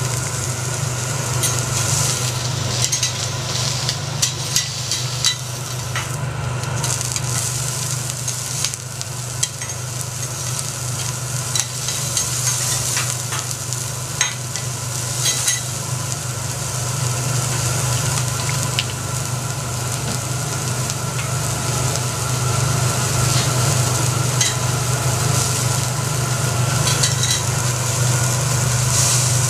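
Food sizzling on a hot teppanyaki steel griddle, a steady frying hiss with scattered sharp clicks of metal tools on the plate. A steady low hum runs underneath.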